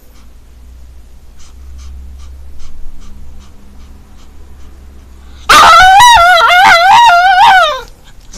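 Japanese Chin dog giving a long, wavering, whining "aaah" call after a few quiet seconds, an attention-seeking demand aimed at the other dog to play.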